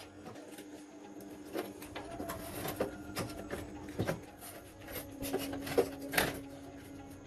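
Hand tools and metal parts being handled on a workbench: irregular clicks, light knocks and scraping, over a steady low hum.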